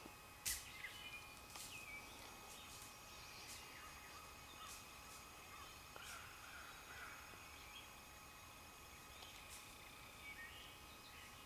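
Quiet woodland ambience: faint sharp clicks and ticks, the loudest about half a second in, with faint bird chirps and a faint low bird call around the middle.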